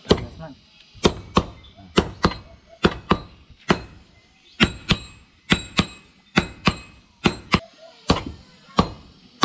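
Hand hammer beating a red-hot steel bolo blade on an anvil, forging it into shape: about two blows a second, often in pairs, each with a short metallic ring.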